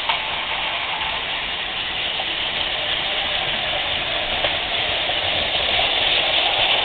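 Battery-powered Plarail toy trains running on plastic track: a steady whirring rattle of small motors and wheels that grows slowly louder as two trains approach side by side.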